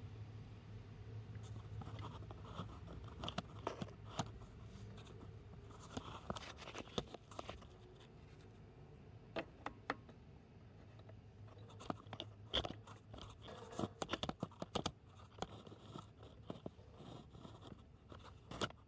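Grinding wheel humming low while a twist drill bit is touched to it again and again by hand to sharpen the cutting tip, giving short, irregular gritty scrapes and clicks.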